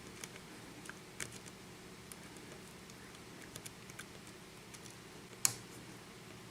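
Light, irregular clicks and ticks of a lock pick working the pins of a Russwin six-pin lock cylinder while it is single-pin picked, with one louder click about five and a half seconds in.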